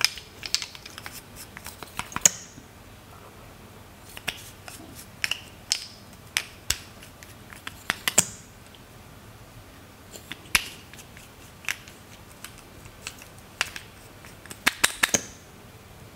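Plastic lip gloss tubes clicking and clacking as they are handled and uncapped and their applicator wands drawn out. Scattered sharp clicks, with a quick cluster of several near the end.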